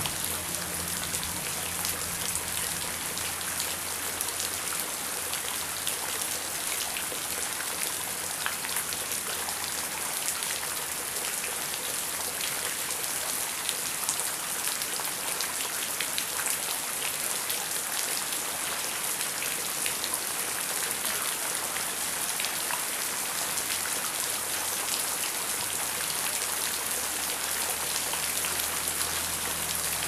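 Heavy rain falling steadily, with many individual drops ticking sharply on a surface. A low rumble underneath fades just after the start and comes back near the end.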